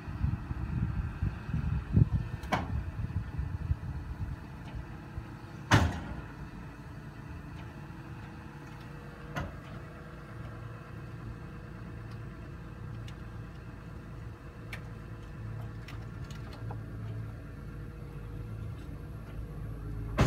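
Heavy machinery being unloaded off a step-deck trailer: an engine rumbles low and uneven, then settles into a steadier hum. Sharp metal clanks ring out a few times in the first half, the loudest about six seconds in.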